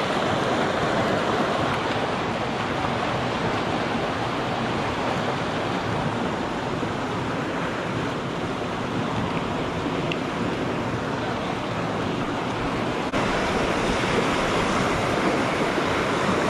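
Steady rush of flowing river water over rocks, a little louder from about thirteen seconds in.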